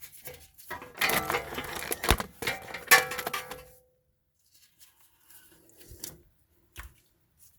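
Metal tools clanking and ringing against the inner tie rod as it is worked loose with a wrench and cheater bar, a loud clattering stretch of about three seconds with a few sharp hits. Afterwards there are only a few faint clicks.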